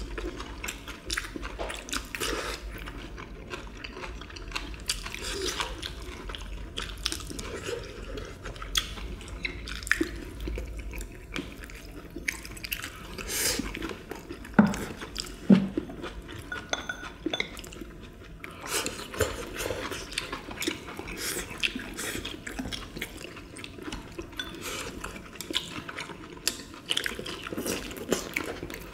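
Close-up eating sounds from several people: wet chewing and mouth sounds, with chopsticks clicking against ceramic bowls and plates. There are two sharper knocks a little past the middle.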